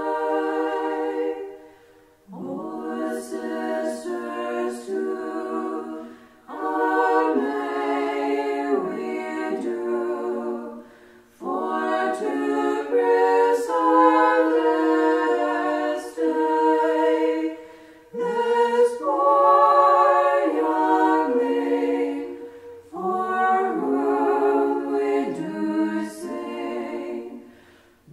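Small women's choir singing unaccompanied, in sung phrases broken every few seconds by short breaths.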